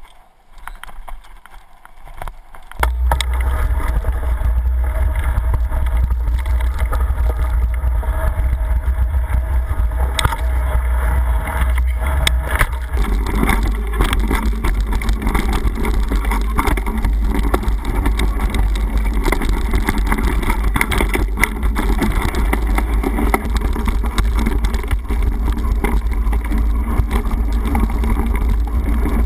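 Mountain bike ride on gravel forest trails heard through an action camera: a steady low wind rumble on the microphone with tyre noise and scattered rattling clicks over bumps, much louder from about three seconds in.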